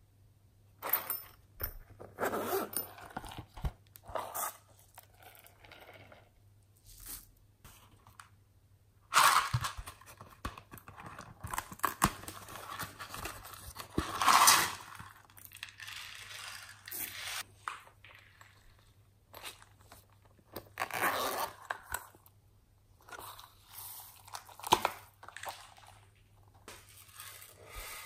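Small boxes and cases being handled and opened by hand: cardboard tearing, scraping and crunching in irregular bursts with quiet gaps between them.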